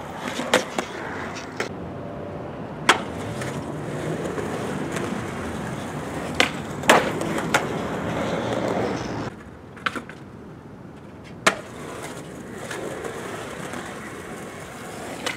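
Skateboard wheels rolling over concrete with a steady gritty noise and occasional sharp clacks of the board. The rolling drops off sharply about nine seconds in, then returns more faintly.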